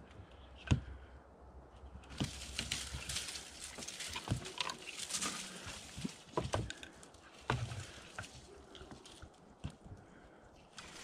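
Handling noises as a plastic container of tannerite is fitted against a door: scraping and rustling with scattered knocks, and one sharp knock about a second in that is the loudest sound. Dry leaves crunch and rustle underfoot.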